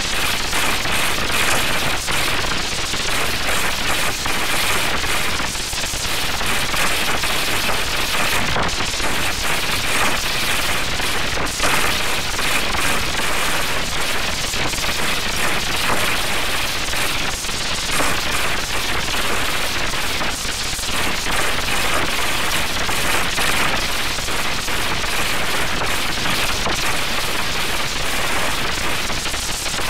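Loud, continuous, harshly distorted crackling noise from an audio-effects edit, in which the original soundtrack is overdriven beyond recognition.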